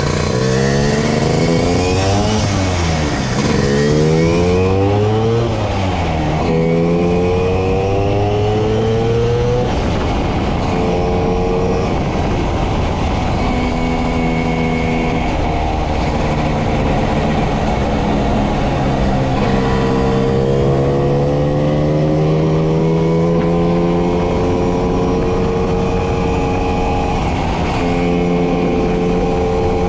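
Two-stroke single-cylinder engine of a Vespa 50 S fitted with an EGIG 170 kit, accelerating hard. Its pitch climbs and drops back several times in the first ten seconds as it shifts up through the gears, then holds at a steady cruise with a slow rise and a brief dip near the end. Wind rushes over the microphone at speed.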